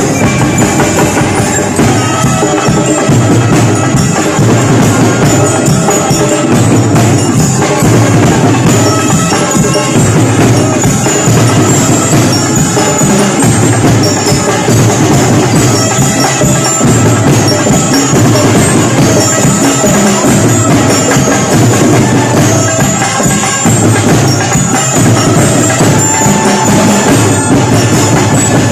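Music with drums and percussion, loud and continuous.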